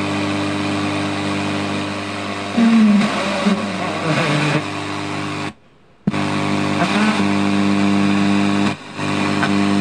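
FM radio of a National RX-C5604 portable stereo being tuned: a steady hum and hiss, with snatches of broadcast sound as the dial passes stations. The sound cuts out for about half a second near the middle and dips again briefly near the end.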